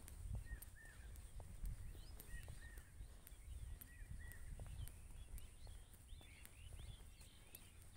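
Small birds calling faintly: one repeats a short arched note of the same pitch several times in the first half, while others chirp higher and more scattered, over a low rumble.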